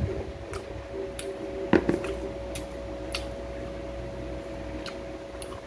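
Chewing on dried red dates (jujubes): soft wet mouth sounds with many small sharp clicks, and a dull knock about two seconds in, over a faint steady hum.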